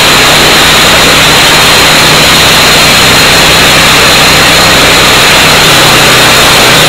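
EDCO walk-behind concrete saw with a Honda engine running: a loud, steady rush of noise over a low engine hum.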